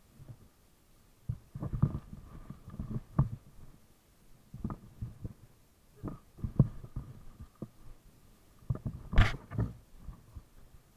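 Irregular dull knocks and thumps from a bike-mounted camera jolting over rough stony and leafy ground, with the loudest knock about nine seconds in.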